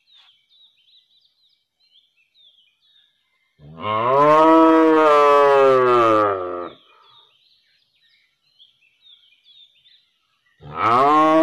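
A cow mooing: one long, loud moo of about three seconds, then a second moo begins near the end. Faint high chirps are heard between the calls.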